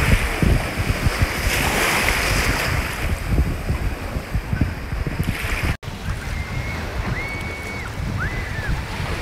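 Legs splashing through shallow sea water as a person wades out, with wind buffeting the microphone and waves. About six seconds in the sound cuts abruptly to steady wind noise and surf, with a few faint high whistled notes.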